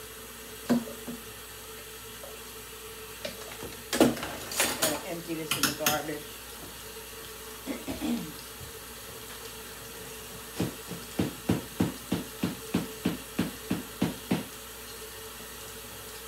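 Kitchen tap running steadily into a stainless-steel sink, with a clatter of dishes about four to six seconds in. Later comes an even run of about a dozen sharp knocks, roughly three a second.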